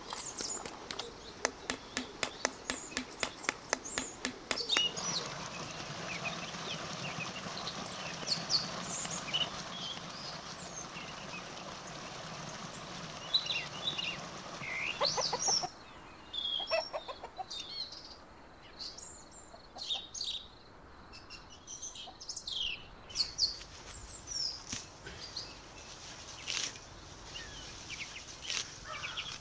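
Small birds chirping on and off, with a quick run of sharp clicks, about four a second, during the first five seconds and a steady low hum until about halfway through.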